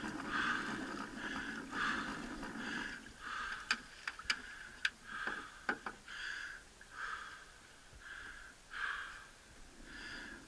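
A yellow Labrador panting close by, in short rhythmic breaths, with a few sharp clicks in the middle.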